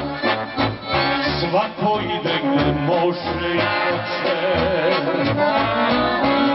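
Serbian folk band playing live: an accordion carries a wavering melody over keyboard, bass and a steady drum beat.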